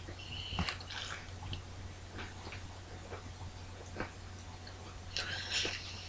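Quiet chewing of a mouthful of crackers: scattered soft crunches and mouth clicks, with a short breathy hiss a little after five seconds.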